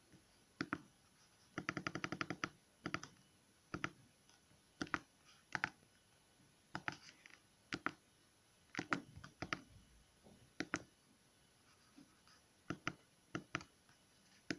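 Buttons on the keypad of a Myria Senior MY9018 phone clicking as they are pressed, short clicks often in close pairs about a second apart, with a fast run of about ten presses near two seconds in.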